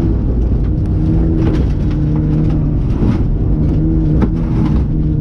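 In-cabin sound of a 2008 Mitsubishi Lancer Evolution X rally car at speed on a gravel stage: its turbocharged 2.0-litre four-cylinder engine runs loud and fairly steady, with scattered knocks and rattles from the rough gravel road.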